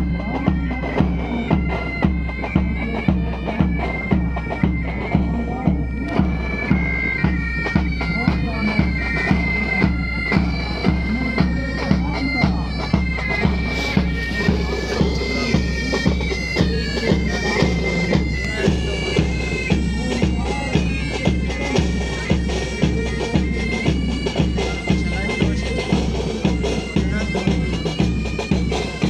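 Military pipe band playing a march: bagpipes carry the melody over their steady drones, with side and bass drums keeping a steady marching beat of about two strokes a second.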